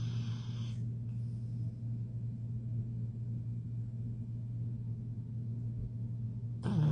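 Snoring, low and steady, with a short noisy snort right at the start.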